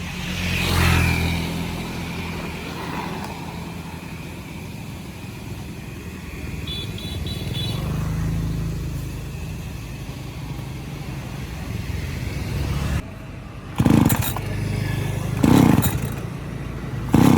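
ECHO two-stroke chainsaw engine running after its restoration, with a rise in revs about a second in. About thirteen seconds in the steady running drops away, and three short loud bursts follow.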